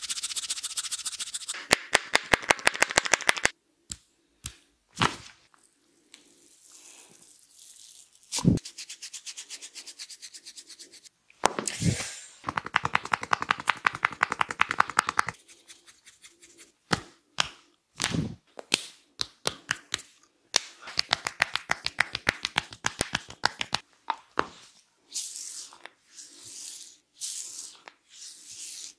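Barber's hands giving an Indian head massage: fast runs of tapping on the head at several taps a second, between stretches of hands rubbing through hair, with a few louder single cracks.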